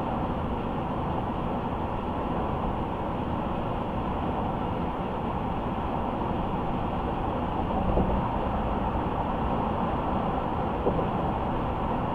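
Steady road noise of a car driving at speed: tyre and engine rumble, strongest in the low end. There is a light bump about eight seconds in and another near the end.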